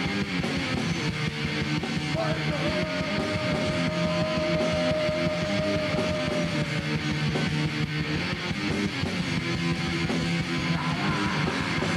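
Punk rock band playing an instrumental passage: distorted electric guitar over bass and drums, with one high note held for about five seconds early on.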